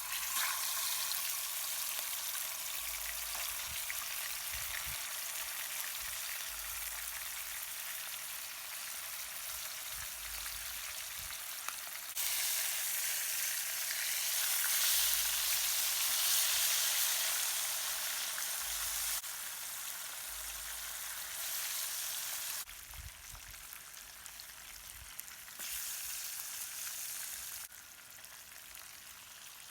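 Skinned fish frying in hot oil on a coal pot stove: a steady sizzle that jumps up and down in loudness abruptly several times.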